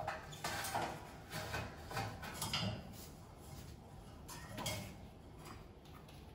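Light knocks and scrapes on a stainless-steel shelf and its metal tray as a baby monkey climbs down the frame, several in quick succession over the first few seconds and one more near the end.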